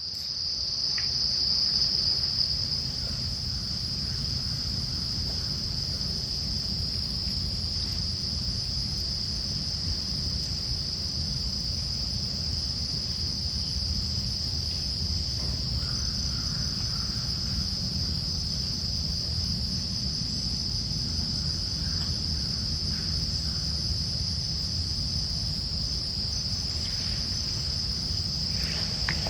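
Crickets chorusing: one steady, unbroken high-pitched trill, over a low rumble.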